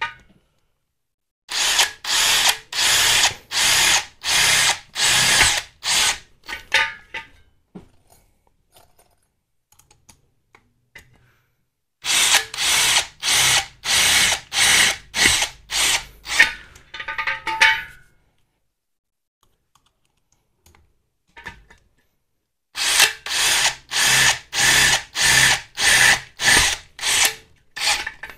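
Kyocera 18V cordless drill running in three spells, each a string of short, evenly spaced bursts about two a second, with pauses of a few seconds between the spells.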